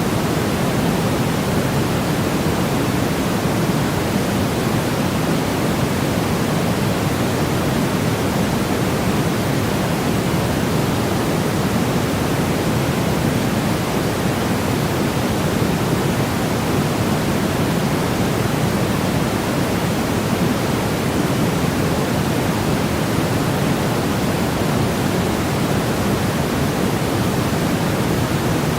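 A steady, unchanging noise track of the kind played for sleep or focus. It is even and hiss-like, with most of its weight in the low and middle range, so it sounds deeper than a plain white-noise hiss.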